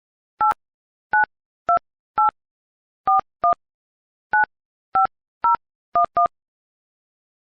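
iPhone 12 mini keypad touch-tones as a phone number is dialled: eleven short two-tone beeps at an uneven pace, the last two close together, then they stop.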